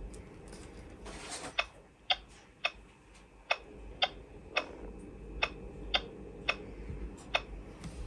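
Plush interactive unicorn toy making a run of light, sharp clicks, about two a second, while a toy spoon and carrot are held to its mouth.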